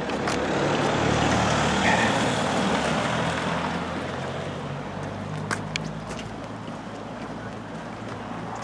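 A motor vehicle running, a rushing noise over a low engine hum that swells in the first two seconds and slowly eases off, with a couple of short clicks about halfway.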